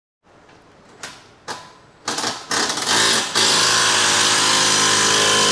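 Two sharp knocks, then uneven bursts of noise, then a machine runs steadily with a hum and a loud hiss before cutting off abruptly.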